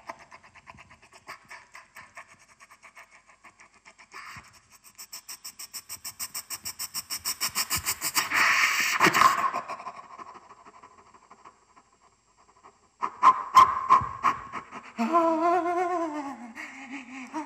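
Experimental live vocal performance into a microphone: rapid rhythmic breathy pulses, about five a second, grow steadily louder into a loud noisy swell. After a pause come a few sharp loud sounds, then a long wavering pitched call that falls in pitch, somewhat like a moo.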